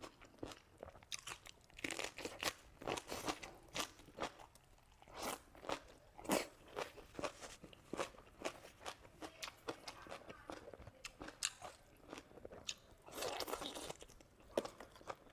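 A person biting and chewing crunchy food, with irregular sharp crunches coming in quick succession.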